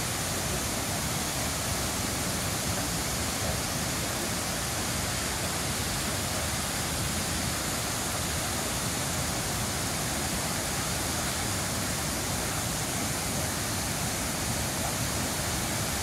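Ban Gioc Waterfall's heavy cascades pouring into the plunge pool: a steady, dense rush of falling water.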